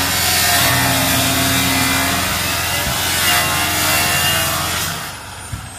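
A power tool cutting through the roof panel of a Land Rover Discovery, a steady hissing cut over a motor hum. It stops suddenly about five seconds in.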